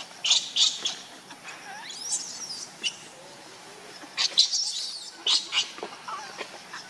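Infant macaque shrieking in repeated short, high-pitched bursts while its mother grips and handles it, the distress cries of a baby monkey.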